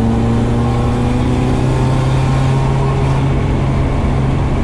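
Nissan SR20DET turbocharged four-cylinder engine heard from inside the stripped cabin, pulling under way at a moderate, steady speed; its note creeps up over the first two seconds and then holds steady.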